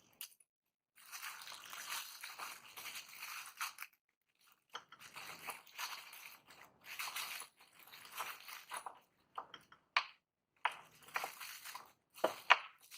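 Plastic packaging crinkling and rustling in bursts as the parts are unpacked, then several sharp clicks in the last few seconds, the loudest just before the end.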